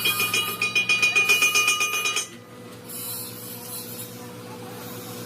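Power tool running with a rapid pulsing whine that cuts off about two seconds in, leaving a steady motor hum.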